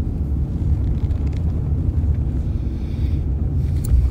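Steady low rumble of a moving car heard from inside the cabin, with a short tap near the end.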